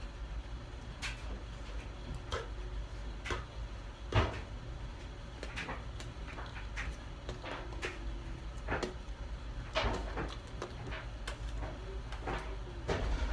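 Irregular soft taps and clicks from a person signing, his hands meeting each other, his chest and his chin, over a low steady hum.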